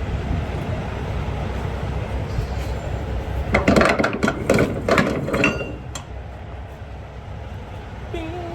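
A quick cluster of metallic clinks and clanks for about two seconds, a few seconds in, as flatbed tie-down strap hardware is handled, over a steady low rumble.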